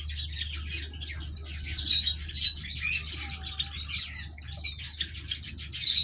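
Many small birds chirping and twittering busily, with rapid overlapping high-pitched chirps, over a steady low hum.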